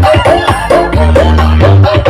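Loud dance music blasted from a large carnival sound system, with heavy sustained bass notes, a bending melody line and steady percussion.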